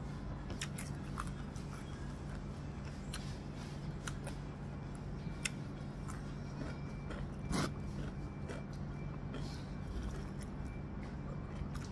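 Eating by hand: fingers working rice on a paper wrapper, then chewing, heard as scattered small clicks and mouth smacks, with a sharper click past the middle, over a steady low hum.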